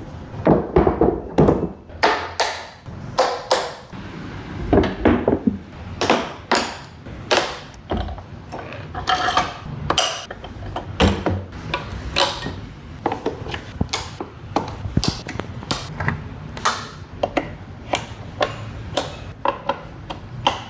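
Irregular metallic clanks, knocks and clicks, about one or two a second, some ringing briefly, with a scraping stretch midway: line array speaker cabinets and their metal rigging hardware being handled and fitted together.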